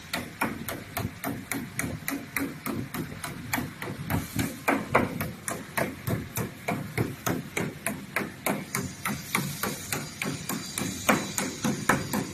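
Hammer knocking table-top boards into place, a steady run of blows about three a second, working along the row to seat the boards flush.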